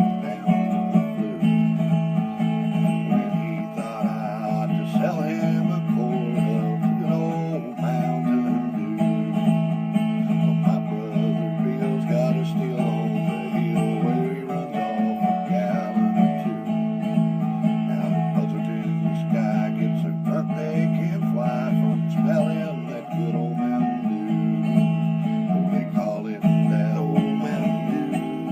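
Acoustic guitar music, strummed and picked, playing steadily with no singing.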